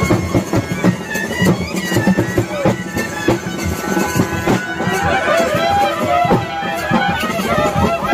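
Traditional procession music: loud wind instruments, including curved brass horns, play long held notes over steadily beating drums. A wavering melody comes in about four seconds in.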